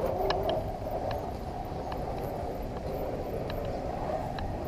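Electric motor and gear drive of a radio-controlled rock crawler whining as it crawls over rocks, the whine wavering in pitch, with scattered sharp clicks and knocks of the truck on stone.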